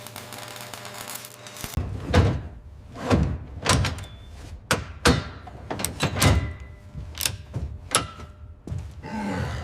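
A clamp being secured: about a dozen irregular knocks and clanks, each with a short ring, starting a couple of seconds in.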